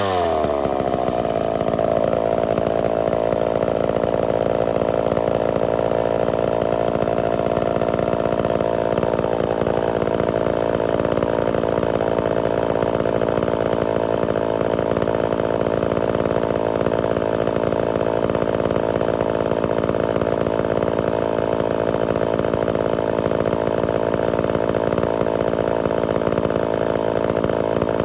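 Homelite Super XL-923 82cc two-stroke chainsaw at full throttle: the pitch falls over the first couple of seconds as it comes under load, then holds steady through a long cut.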